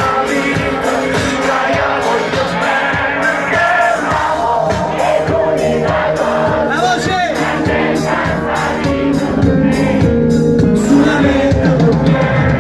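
Live concert music over a venue PA, with a voice singing over the beat and the crowd's voices mixed in.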